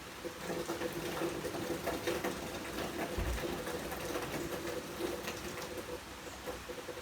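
Rain falling steadily, with many small drops pattering and ticking, over a steady low hum. A single soft low bump about three seconds in.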